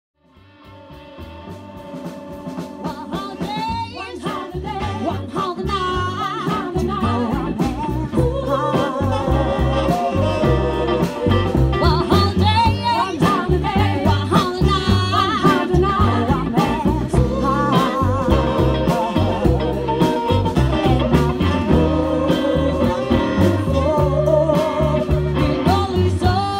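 Live band music: a female vocal group singing over upright double bass, saxophone and drums. It fades in over the first several seconds.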